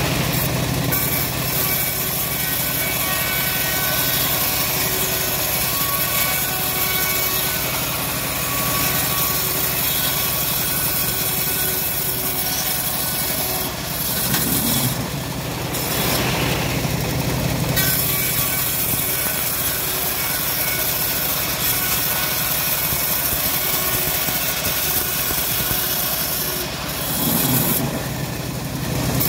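Homemade bandsaw mill running steadily and ripping a teak board lengthwise: a constant machine hum under the hiss of the blade in the wood. The cutting hiss eases off twice, around the middle and near the end, as the blade briefly runs free.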